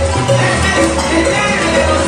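Salsa music playing, with a steady bass line and a regular beat.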